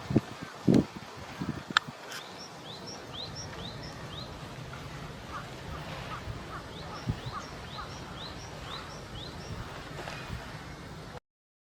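Wild birds calling outdoors: two series of short, rising chirps repeating about three to four times a second, over a steady outdoor background. A few low thumps and a sharp click come in the first two seconds, and the sound cuts off abruptly just before the end.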